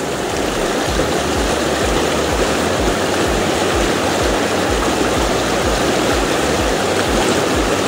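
River water rushing steadily through a stretch of rough, broken water.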